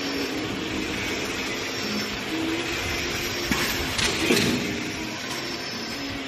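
Automatic wire fan-guard looping and welding machine running with a steady mechanical din and faint steady tones. A few sharp metal clanks come a little past halfway as the wire guard is handled on the machine's rotary table.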